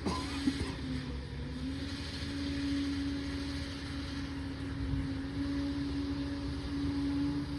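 Liebherr 746 crawler dozer's diesel engine running steadily, with a sharp knock about half a second in.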